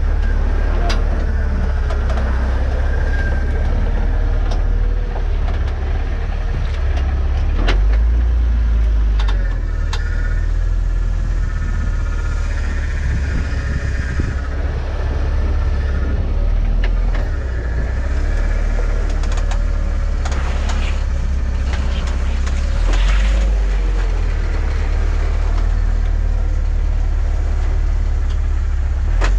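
Off-road 4x4's engine running at low speed as the vehicle crawls over slickrock, heard as a heavy, steady low rumble with a few sharp knocks.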